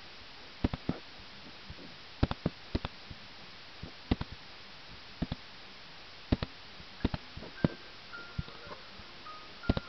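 Sharp clicks at a computer, singly and in quick pairs at irregular intervals, over a steady hiss. A few short high music notes come in near the end.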